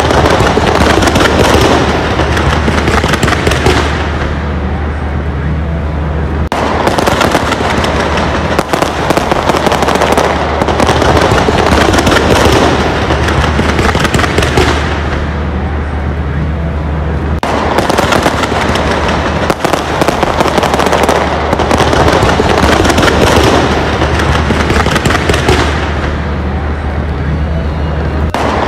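Large fireworks display: a dense, continuous barrage of bangs and crackles, swelling and easing every few seconds.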